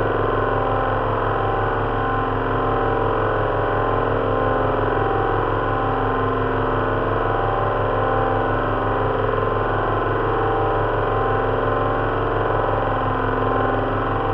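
Simulated drone of an Avro Lancaster's four Rolls-Royce Merlin V12 engines, built from a speaker-per-cylinder engine sound simulator recorded four times at slightly different speeds and mixed with a fan heater for propeller noise. It runs as a steady, unchanging drone.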